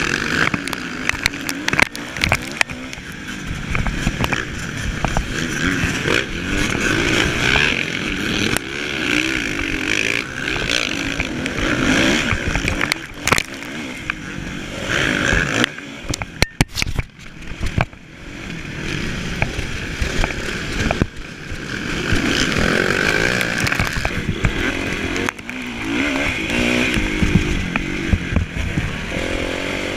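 Kawasaki motocross bike's engine heard from a camera mounted on the bike, revving up and down as it is ridden hard over the track, with wind noise and many short clicks and knocks. The sound drops briefly a little past halfway, then the revving picks up again.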